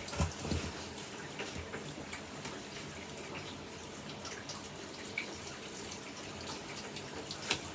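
Soft handling and movement noises as a person gets up and picks up a flower arrangement: a low thump at the start, scattered light clicks and rustles, and a sharper click near the end, over a steady low hiss.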